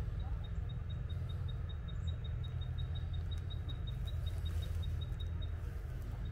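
Rapid high-pitched chirping, short notes about seven a second, that stops shortly before the end, over a steady low rumble.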